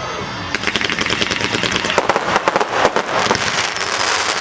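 Fireworks crackling: a rapid, dense string of sharp pops starting about half a second in.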